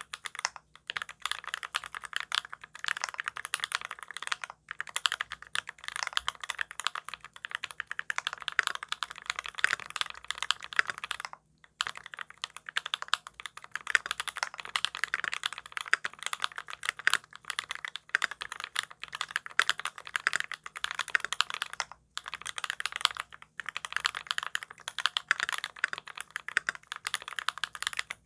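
Close-miked TX87v2 mechanical keyboard with lubed Drop Holy Panda tactile switches on a brass plate and GMK keycaps, typed on fast and continuously: a dense stream of key clacks with a few short pauses.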